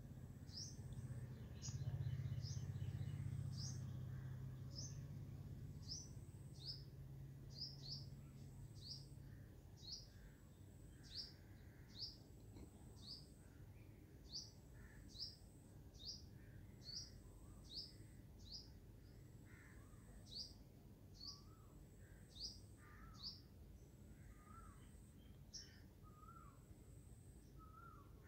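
A small bird calling over and over, short high falling chirps a little more than once a second, with lower chirps from a second bird joining in the later part. A low hum swells in the first few seconds, is the loudest sound there, and fades out by about ten seconds in.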